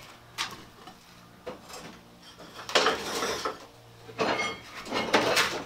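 Loose metal objects clattering and clanking as they are handled and set down, in irregular bursts. The loudest bursts fall in the middle and near the end, and one leaves a brief metallic ring.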